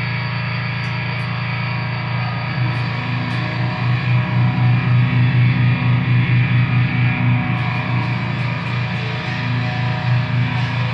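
Loud distorted music: a sustained low drone that, about three seconds in, turns into an even low pulsing at about four beats a second.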